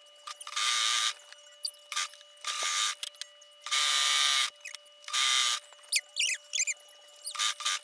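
Husqvarna Viking Huskylock 936 serger (overlocker) running in short spurts, about five bursts of half a second to a second each, stopping and starting as the fabric is fed. A few quick high chirping squeaks come about six seconds in.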